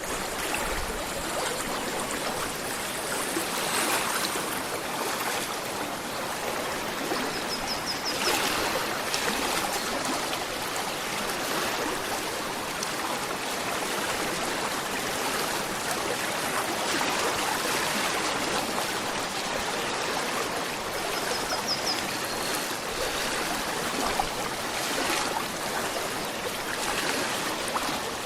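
Gentle river flowing: a steady rush of running water, with a brief high trill heard twice.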